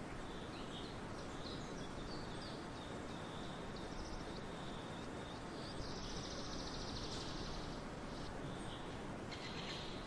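Small birds chirping over a steady background hiss, with a rapid trill from about six to seven seconds in and another starting just before the end.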